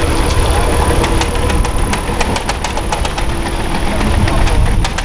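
Heavy machinery's engine running hard, with a steady high whine and many sharp clicks and knocks over the rumble.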